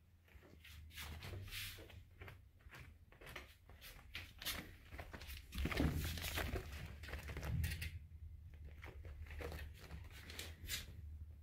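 Curtain fabric rustling and scratching as a baby squirrel climbs it, its claws catching in the cloth: a run of short scratchy rustles, busiest and loudest around six seconds in.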